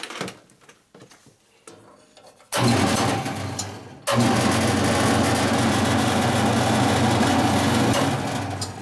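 A 1960s Boice-Crane 14-inch bandsaw switched on for a first test run on a newly fitted and tensioned blade. Its motor and blade come on suddenly about two and a half seconds in with a steady hum. The sound sags, is cut and restarted about a second and a half later, then runs steadily and begins winding down near the end.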